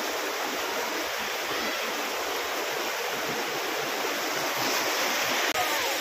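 Steady rush of a rocky stream tumbling between boulders. About five and a half seconds in, the sound drops out for an instant and comes back slightly louder.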